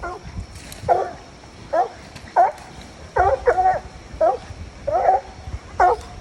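Coonhound barking at a tree, short chop barks about once a second with one quick double bark near the middle: tree barks, the sign that the dog has a raccoon treed.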